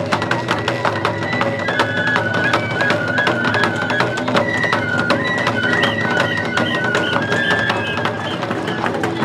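Lion-dance festival music: a high bamboo flute plays a stepped melody over dense taiko drum strikes.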